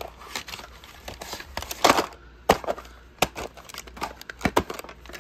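White plastic clamshell VHS case being handled and opened with the cassette inside: a run of irregular sharp plastic clicks and knocks with some crinkly rattling, the loudest about two seconds in.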